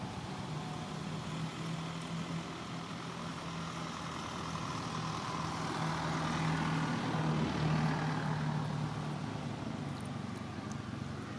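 A motor vehicle's engine runs with a steady low hum. It grows louder to a peak about seven or eight seconds in, then fades. A few faint ticks come near the end.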